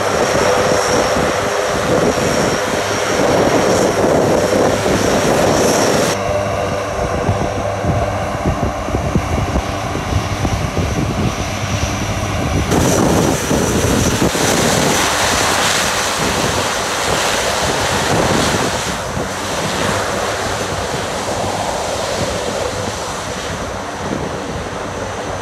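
Four-engine C-130J-type military turboprop taxiing on the runway: a steady, loud propeller drone with a high turbine whine over it. The sound changes abruptly about six and thirteen seconds in.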